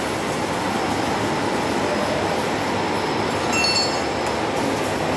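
Hydraulic pump unit running steadily while a hydraulic ram is being tested, with a short high-pitched squeak about three and a half seconds in.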